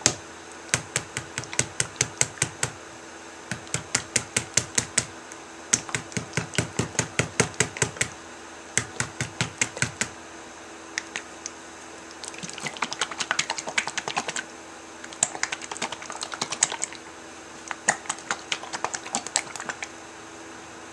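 Plastic squeeze bottle of soap batter and colouring being shaken hard to mix in the green colour: runs of quick clacks, about five a second, broken by short pauses, with a denser, busier stretch a little past halfway.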